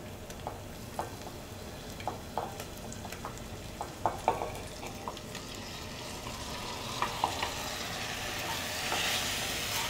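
Raw fish pieces frying with sautéed onions in oil in a heavy-based pot, sizzling while a wooden spatula stirs them, with light knocks of the spatula against the pot. The sizzle grows louder near the end.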